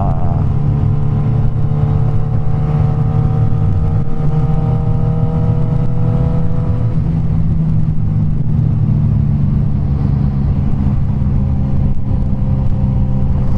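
Suzuki GSX-S1000's inline-four engine running at a steady road cruise through an aftermarket Firetong Willy Made exhaust, heard from the rider's seat. A faint higher whine rises slowly over the first seven seconds or so, then fades.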